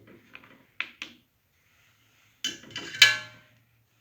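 Kitchenware being handled: a few light clicks, then a scrape and a sharp clink of a dish being set down, ringing briefly.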